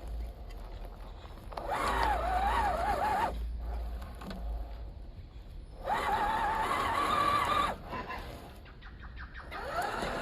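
Electric motor and gearbox of a 1:10-scale MST CMX RC crawler whining in two bursts of throttle, each under two seconds, its pitch wavering up and down with the load.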